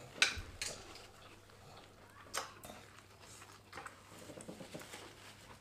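Two people eating at a table: chewing and mouth sounds with a few sharp clicks, the loudest about a quarter second in and another about two and a half seconds in.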